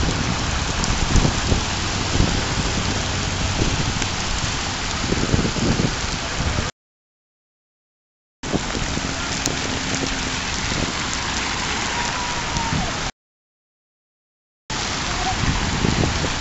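Steady rain falling, broken twice by a second or so of dead silence where the recording cuts.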